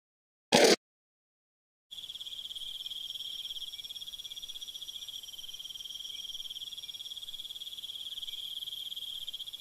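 A steady, finely pulsing high insect trill like cricket chirring, starting about two seconds in. Before it, a single short loud burst of noise breaks the silence under a second in.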